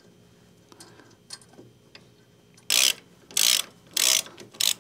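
Hand ratchet wrench running a bolt in, with faint clicks at first. From just past halfway come four quick ratcheting bursts, one on each back stroke of the handle.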